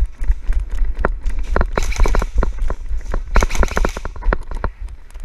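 Footsteps of a player running, with rapid irregular knocks and rattles from the gear and heavy handling rumble on the body-worn microphone.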